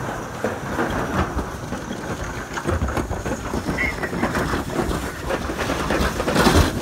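Toboggan sleds rattling and rumbling as they slide fast down a trough-style toboggan run, with a louder jolt near the end.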